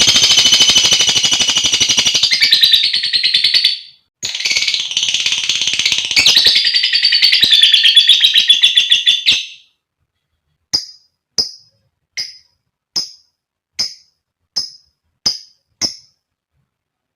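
Female lovebird calling: two long, very rapid high-pitched chattering trills of several seconds each, then about eight short single chirps evenly spaced a little over half a second apart.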